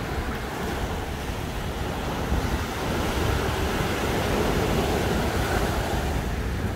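Small waves breaking and washing up a sandy beach, a steady surf hiss that swells a little about halfway through, with wind rumbling on the microphone.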